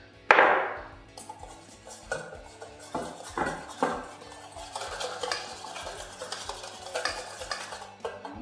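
A metal utensil stirring and scraping a thick peanut sauce in a stainless steel bowl, with repeated light clinks against the bowl. A loud clank rings out just after the start.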